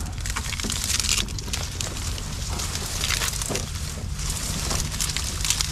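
Dry marsh reeds rustling and crackling as someone moves through them and brushes against the stems, with a steady low rumble underneath.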